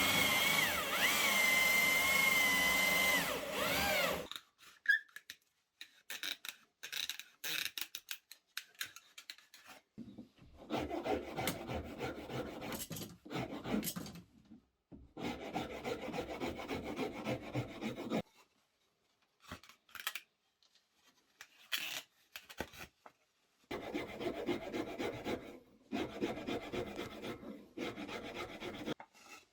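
A power tool whines for about four seconds, its pitch wavering, then cuts out. Then a hand tool rasps and rubs against wood in short scrapes, then in long runs of back-and-forth strokes, shaping the wooden hammer.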